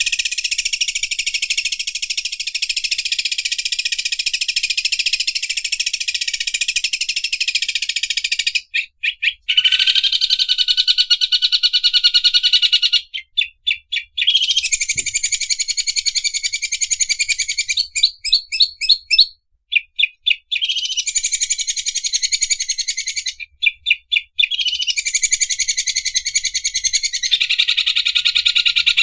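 Green leafbird (cucak ijo) singing in the 'mesin obras' style: long runs of very fast, high-pitched chatter like an overlock sewing machine, broken a few times by short series of separate sharp notes.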